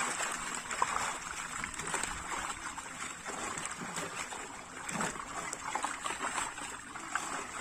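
Many live fish thrashing and splashing in a seine net drawn up to a pond bank, a continuous crackle of slaps and water sloshing as hands work among them.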